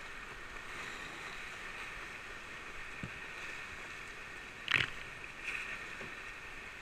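Steady rush of whitewater from a river rapid, with a single short, sharp hit about two-thirds of the way through and a smaller one just after.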